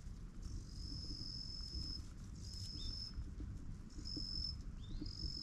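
An insect singing a steady high note in four spells, each between about half a second and a second and a half long, some opening with a short upward slide, over a low outdoor rumble.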